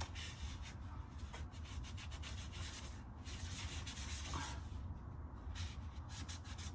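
Rough rubbing or scraping in a series of strokes, broken by short pauses, over a steady low hum.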